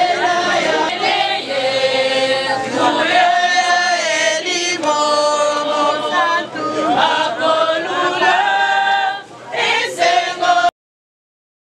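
A group of voices singing together in long held notes, like a choir. The singing cuts off abruptly near the end.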